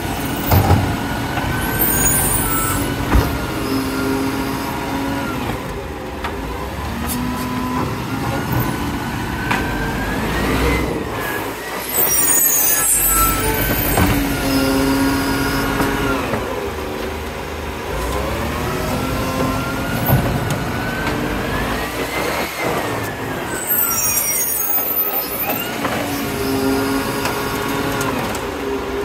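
Side-loader garbage truck's engine and hydraulics working the bin-lifting arm: the pitch rises and falls twice as the engine revs up to drive each lift and settles again, with a short air hiss three times, about ten seconds apart.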